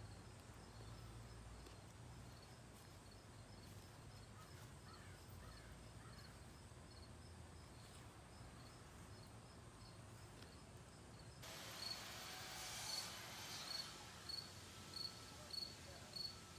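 Faint outdoor ambience with a high, insect-like chirp repeating about twice a second. The chirps get louder about twelve seconds in, along with a soft hiss.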